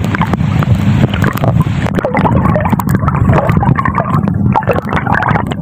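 Underwater sound picked up by a phone in a waterproof case held under shallow sea water: a steady muffled low churning, with many small gurgles and clicks of water moving against the case.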